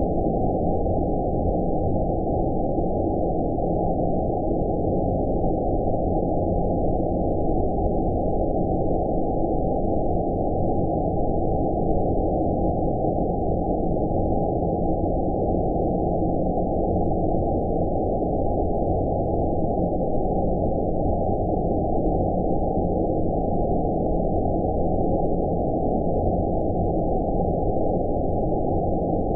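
Steady, deep rumbling noise with all the hiss filtered off above the low range: a synthetic 'outer space' sleep-noise track, unchanging throughout.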